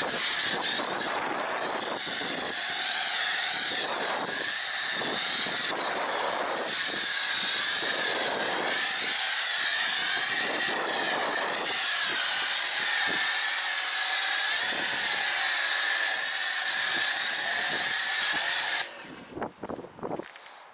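Pressure washer spraying snow foam through a Maxshine foam cannon: a steady hissing spray with a wavering whine under it, which cuts off suddenly near the end.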